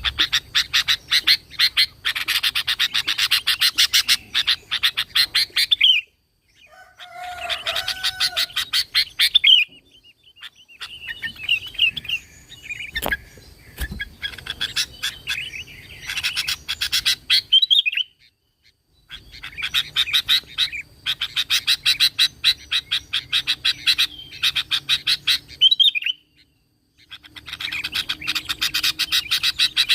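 Sooty-headed bulbul (kutilang) calling in long phrases of rapid, repeated high chattering notes, several seconds each. The phrases are broken by short pauses, some of which cut off abruptly.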